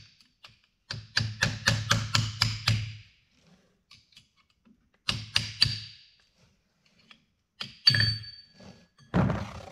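Hammer blows on a tapper, driving a stuck clutch pressure plate out of a Carraro transmission's clutch drum, where a ridge worn into the drum holds it. A quick run of about eight metal strikes, roughly four a second, then three more, then one strike that rings on briefly.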